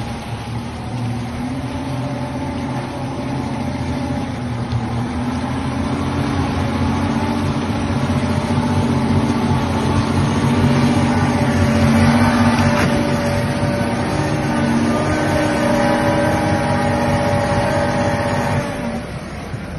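Ural truck's diesel engine labouring under load as the truck wades through deep water and mud. The engine note climbs slowly and falls away near the end.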